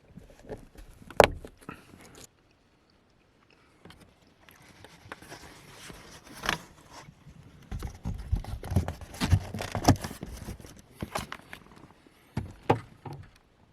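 Irregular clicks, knocks and rustling of things being handled, with a sharp click about a second in and a thicker run of knocks in the second half.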